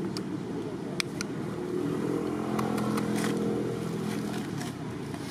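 Engine of a passing motor vehicle, a steady hum that swells about a second and a half in and fades away a few seconds later. A few sharp clicks sound about a second in.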